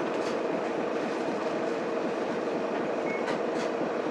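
The 6M70 straight-six diesel of a Mitsubishi Fuso Aerostar bus idling steadily at a stop, heard from inside the cabin.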